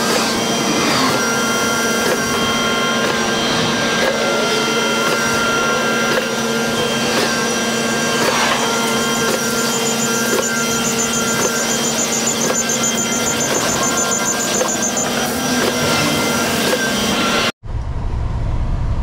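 Concrete mixer truck running at the pour, its machinery giving a loud, steady mechanical whine with several held tones. Near the end it cuts suddenly to the low rumble inside the truck's cab on the road.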